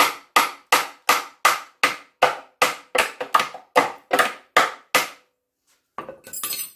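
Hammer blows driving a rusted bolt out of the radius-arm bracket on a classic Austin Mini rear subframe, metal on metal: a steady run of about three strikes a second, each ringing briefly, stopping about five seconds in. A brief rustle near the end.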